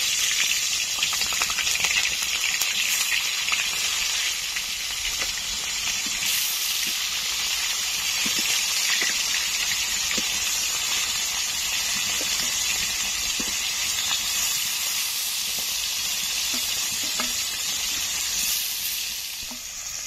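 Turmeric-coated fish pieces frying in hot oil in a metal wok, a steady sizzle that keeps up as more pieces are slid into the oil.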